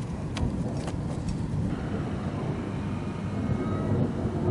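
Distant thunder rumbling low and steadily after a lightning strike, swelling slightly toward the end, with a few faint clicks in the first second or so.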